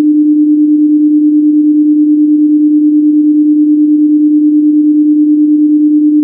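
Computer-generated 300 Hz cosine wave: a single steady pure tone with no overtones.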